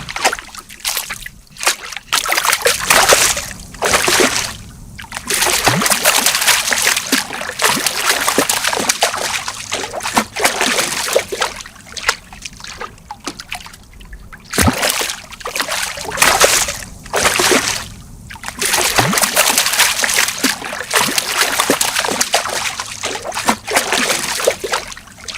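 Fish splashing and thrashing at the water's surface: loud, irregular bursts of splashing and sloshing, each a second or several long, with brief lulls between.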